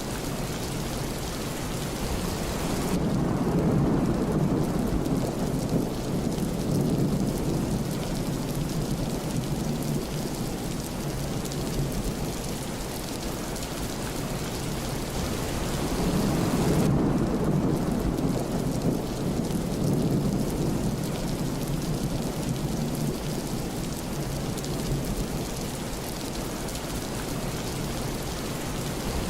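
Thunderstorm: steady rain falling, with two long rolls of thunder, one starting about three seconds in and another about seventeen seconds in.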